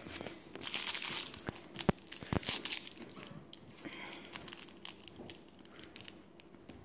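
Crinkly plush snowman toy crackling as a corgi puppy chews and worries it with her teeth, in bursts that are loudest in the first few seconds, then softer scattered crinkles.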